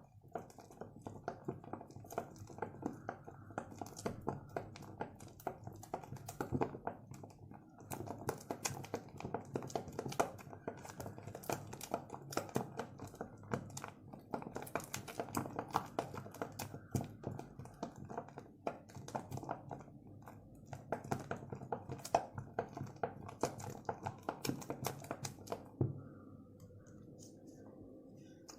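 Hands kneading and stretching sticky soap slime: a dense run of small crackles and wet clicks that pauses briefly twice and thins out near the end.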